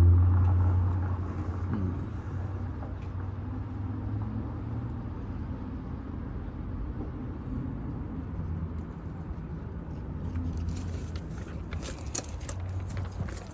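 A low, steady engine-like rumble, loudest at the start and easing off over the first couple of seconds, with a run of sharp clicks and knocks near the end.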